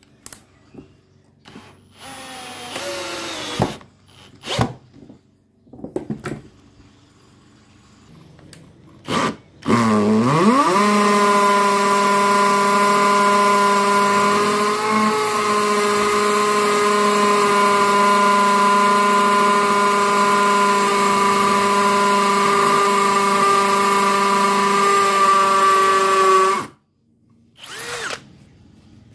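Bosch UniversalImpact 18V 60 cordless brushless hammer drill. It first gives a few short bursts driving a screw into a wall plug in a brick. About ten seconds in it spins up and hammer-drills steadily into a concrete paving slab for some sixteen seconds, then stops abruptly.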